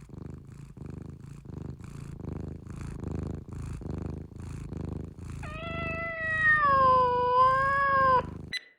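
Domestic cat purring in a steady rhythmic pulse. About five seconds in it gives one long, drawn-out meow that dips and wavers in pitch, lasting nearly three seconds.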